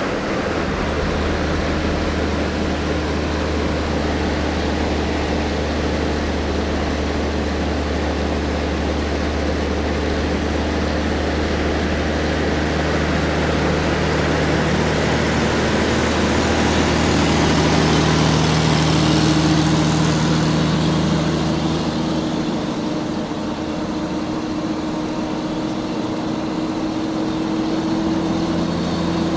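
Large truck's diesel engine under way, a steady low drone mixed with road noise and a thin high whine. The engine note climbs and swells a little about two-thirds of the way through, then eases off as the deepest rumble drops away.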